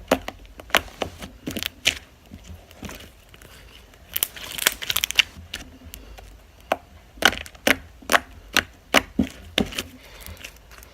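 White-base glitter slime being squished and poked by hand, giving irregular sharp clicks and pops as trapped air escapes, with a denser run of crackling about four to five seconds in.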